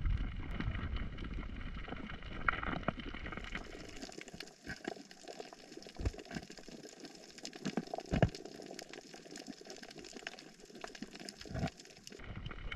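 Underwater sound picked up by a camera in the water over a coral reef: a bubbling, gurgling water hiss with many scattered sharp clicks and a few louder low knocks.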